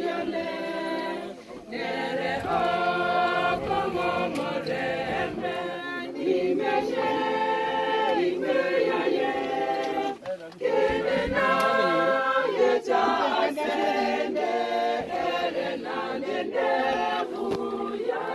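A group of mourners singing together without instruments, many voices at once, with a short break about ten seconds in.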